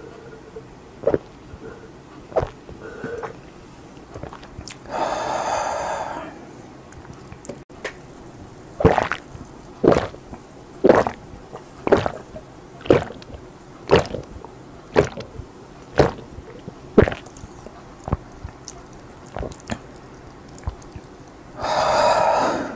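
A person gulping down soda in one go, with loud swallows coming about once a second. Each drink ends in a breathy 'ahh' exhale, once about five seconds in and again near the end.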